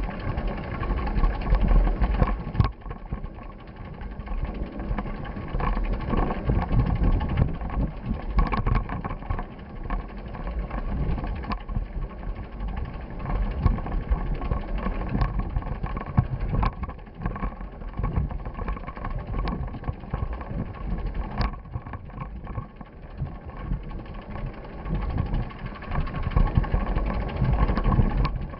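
A vehicle in motion: a steady low rumble that swells and fades, with a few sharp clicks.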